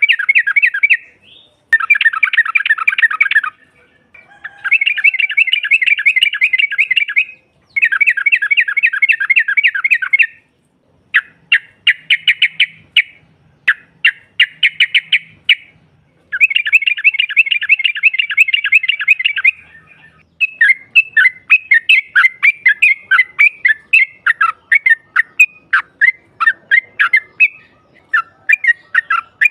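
Yellow-vented bulbul (trucukan) calling: bursts of fast chattering notes, each lasting one to three seconds with short gaps between. From about two-thirds of the way through, the bursts give way to a looser, steady run of separate chirps. This is the rapid 'ngropel' chatter played to lure other trucukan.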